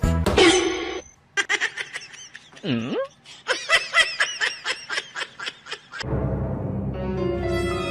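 A person laughing in quick repeated bursts for several seconds, with one deep swooping sound partway through. Music with a beat cuts off about a second in, and a steady low music drone takes over near the end.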